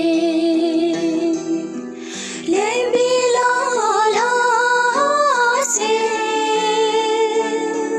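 A woman singing a slow melody into a handheld karaoke microphone, holding long notes with vibrato. She breaks briefly about two seconds in, sings a phrase that moves up and down, then holds another long note near the end.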